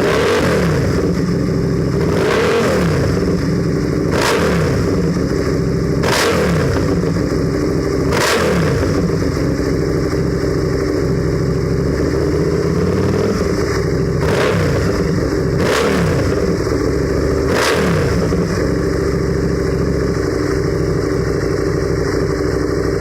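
Aprilia RSV Mille V-twin motorcycle engine through an SC Project aftermarket exhaust, idling and revved in short throttle blips about eight times, the revs falling back after each one. The last few seconds are a steady idle.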